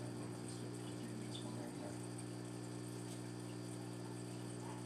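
Steady electrical hum with a faint watery hiss from running aquarium equipment, air pumps and filters, holding level throughout.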